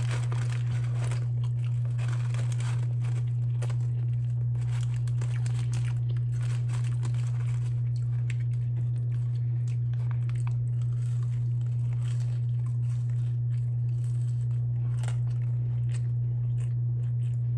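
Paper fast-food wrapper crinkling and tearing as it is handled, with crunching and chewing of food, in many short crackles. A steady low hum runs underneath and is the loudest part.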